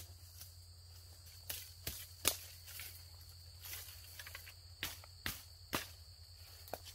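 Footsteps pushing through dense undergrowth, with eight or so sharp snaps and cracks of twigs and branches at uneven intervals. A steady high insect drone runs underneath.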